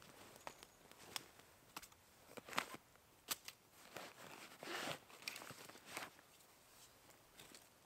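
Faint rustling and sharp clicks of a backpack and its straps being handled, with a longer scraping rustle about halfway through as a Hultafors axe is pulled out from under the pack's straps.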